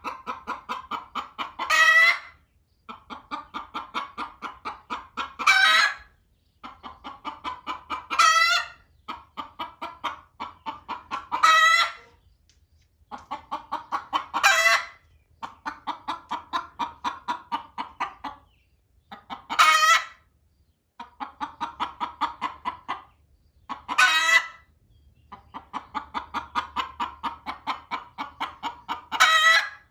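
Hen cackling over and over, each phrase a run of quick clucks that climbs into one loud squawk, about eight times. The uploader says this is a hen waiting to lay, loudly urging the hen on the nest to hurry up and get off.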